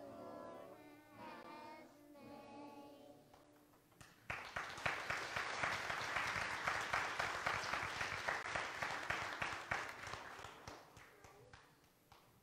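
A group of young children singing the end of a song, stopping about three and a half seconds in. Then the congregation applauds, the loudest part, for about seven seconds before the clapping thins out and fades near the end.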